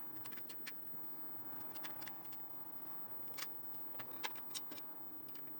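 Faint, scattered small clicks and ticks of a screwdriver working the screws of a desktop CPU cooler, a dozen or so at uneven intervals, the sharpest about three and a half seconds in and a few more just after four seconds.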